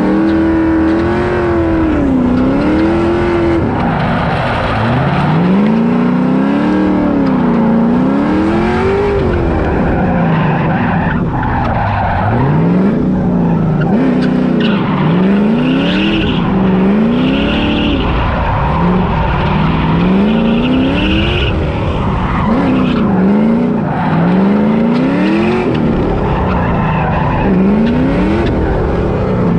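Drift car's engine revving up and down over and over through a drift run, heard from inside the cockpit. The swings come quicker and shorter partway through, with tyres squealing in repeated bursts during the tight section.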